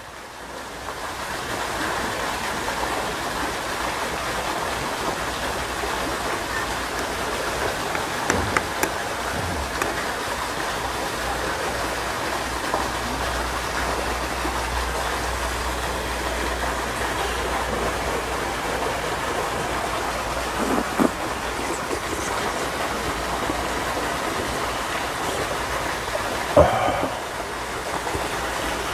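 Steady rushing water noise, with a few short clinks of a metal spoon against a ceramic bowl, the loudest near the end.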